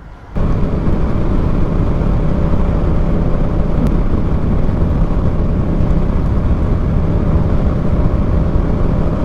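A motorcycle under way at road speed: a steady engine drone under loud wind and road noise. It starts abruptly just after the beginning.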